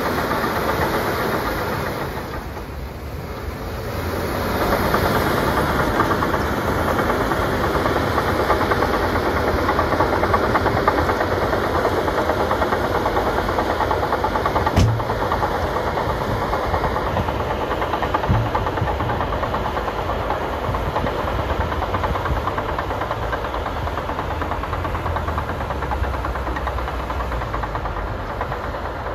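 Crawler bulldozer working under load as it pushes snow with its blade: the diesel engine runs with a steady clatter of the steel tracks. The sound dips briefly about two seconds in, then rises again, with one sharp knock about halfway through.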